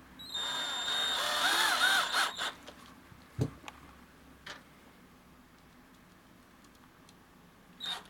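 Cordless drill-driver spinning up to drive a screw-in traction stud into a rubber shoe sole: a motor whine for about two seconds, wavering in pitch. A thump follows, and a brief whirr of the drill near the end.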